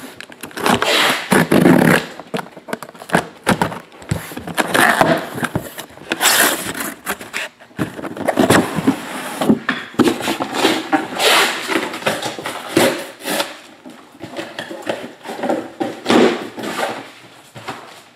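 Cardboard cases being handled and opened: irregular scraping and sliding of cardboard on the table, with knocks and rustling throughout.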